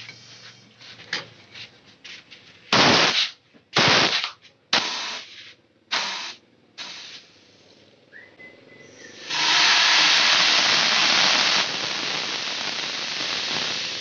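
Compressed air blown through a refrigerator's refrigerant tubing, hissing out in five short blasts and then one long blast of about two seconds that eases off into a weaker hiss. The air is purging oil that clogs the evaporator and keeps the freezer from cooling evenly.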